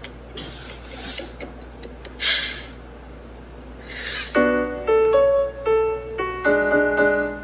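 A cat pawing at the keys of a piano, sounding a handful of notes and chords from about four seconds in. Before that, a few short breathy puffs of noise.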